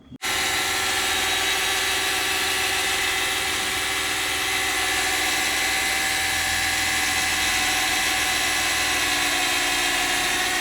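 Power drill running steadily under load, boring a hole for cable entry. It starts abruptly and eases slightly near the end.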